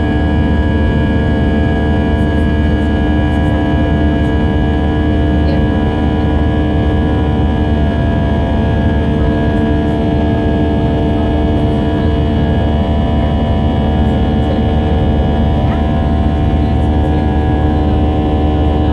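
Steady cabin noise of an Airbus A320 in the climb after takeoff, heard from inside the cabin: a constant engine drone made of several steady tones over a deep rumble.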